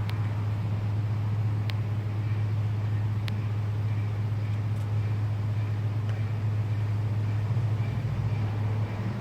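Honeybee colony in a cracked tree humming steadily, a dense low drone, with a few faint ticks.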